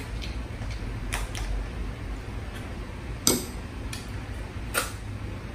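Scattered sharp clicks and smacks of a cooked prawn being pulled apart and eaten, the loudest about three seconds in, over a steady low hum.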